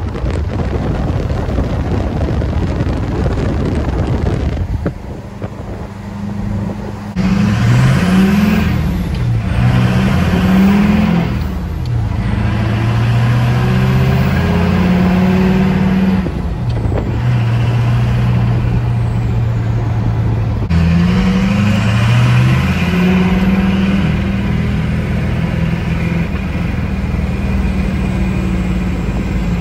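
Wind and road noise rushing past a moving truck, then, heard from inside the cab, an LLY Duramax 6.6 L turbo-diesel V8 pulling through the gears: its note rises and drops back at each upshift, several times over, with steadier cruising stretches between.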